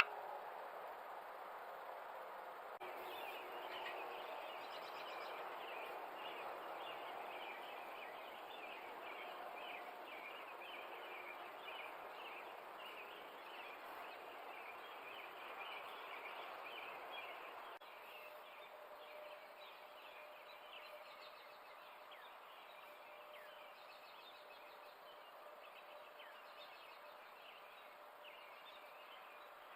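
Faint outdoor ambience: many small high chirps over a steady background hiss. The sound changes abruptly about three seconds in and again around eighteen seconds, after which it is quieter, with a faint steady hum.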